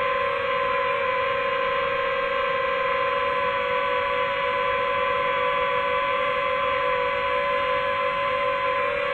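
Multirotor drone's motors and propellers humming steadily at an even pitch, picked up by the camera on the drone itself as it flies slowly.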